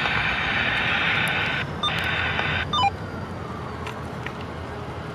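Diesel freight locomotive's air horn blowing a chord: one long blast, a brief break just under two seconds in, then a shorter blast that cuts off a little before three seconds in. The train's running noise carries on underneath after the horn stops.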